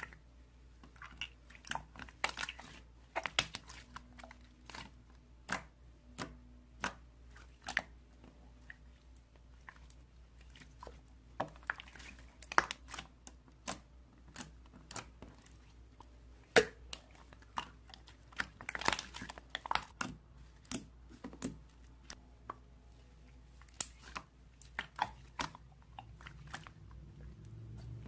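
Mixed slime being kneaded, stretched and pressed by hand, giving irregular soft clicks, crackles and pops with no steady rhythm.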